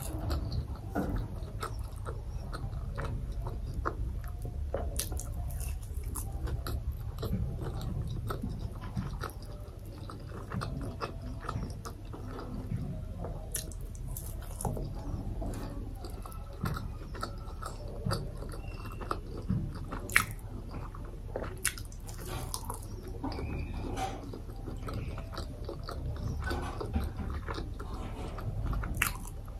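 Close-miked chewing and biting of buckwheat flatbread (fapar ko roti), with many small mouth clicks throughout.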